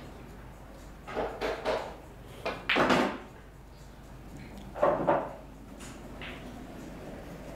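Pool balls in play after a cue shot on a blackball table: short clattering knocks of balls striking each other and the cushions. The loudest knocks come about three seconds in and again about five seconds in.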